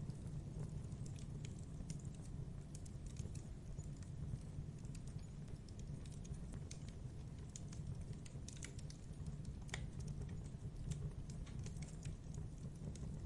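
Campfire crackling: scattered sharp pops and snaps of burning wood, irregular and of varying strength, over a steady low rumble.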